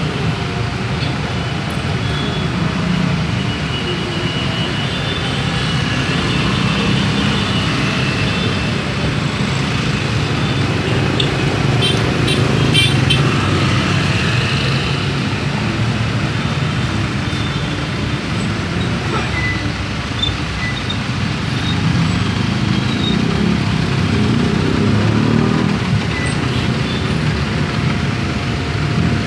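Dense street traffic, mostly motor scooters and cars passing close by with their engines running in a steady low rumble. About twelve seconds in there is a short run of rapid ticks.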